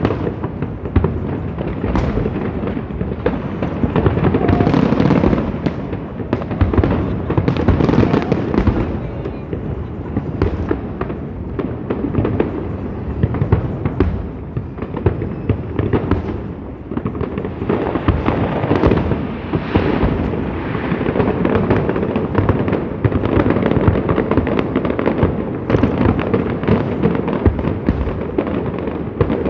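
Large fireworks display: shells bursting in quick succession, a continuous barrage of bangs and crackle with no pause.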